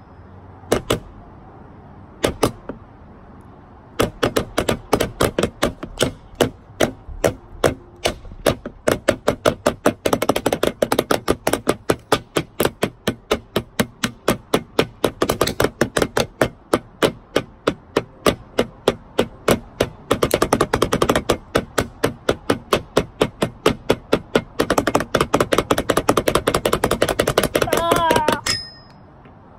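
Two sticks drumming on a plastic flying disc used as a makeshift drum: a few single taps, then from about four seconds in a steady run of quick hits with several faster rolls, stopping shortly before the end.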